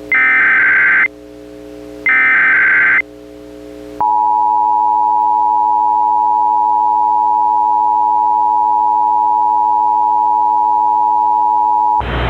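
Emergency Alert System SAME header bursts: two buzzy digital data chirps, each about a second long and a second apart. About four seconds in, the EAS attention signal follows, the two-tone 853/960 Hz alarm held steady for about eight seconds. It cuts off just before the end, where a burst of hiss begins.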